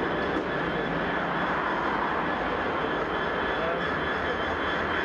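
Class 66 diesel locomotive engine working steadily under load, with a high turbocharger whine over the drone, as it draws the damaged class 175 unit away.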